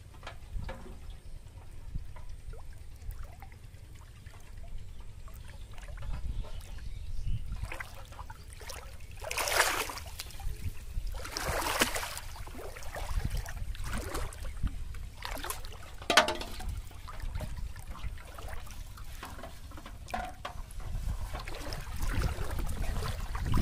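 Shallow pond water sloshing and splashing as a person wades through it pushing a large aluminium basin, with a handful of louder splashes scattered through.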